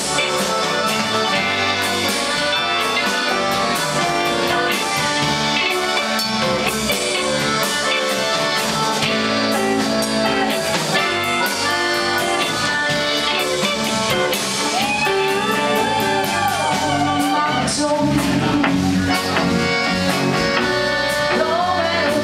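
Live blues band playing: accordion, electric guitars, bass and drum kit in a steady groove, with a woman's voice singing for a few seconds about two-thirds of the way in and again near the end.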